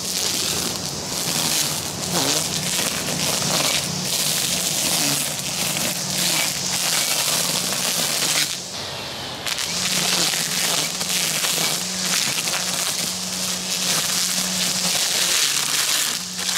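String trimmer running at speed, its line cutting through tall grass with a dense crackling hiss over a wavering motor note. About eight and a half seconds in it drops off for about a second, then picks up again.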